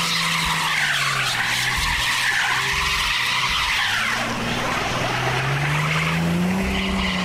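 Sedan's wheels spinning in snow while its engine revs, a whining spin whose pitch rises and falls: the car is stuck without traction and is being pushed free.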